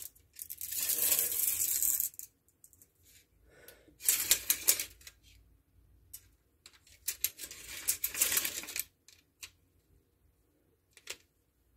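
Tape measure on a combination laser level and tape measure tool: its steel blade is pulled out and run back into the case in three rattling spells, with a couple of single clicks near the end.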